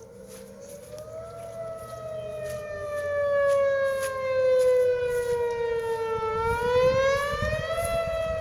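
Outdoor tornado warning siren wailing, its pitch rising, sliding slowly down for several seconds, then rising again near the end, growing louder.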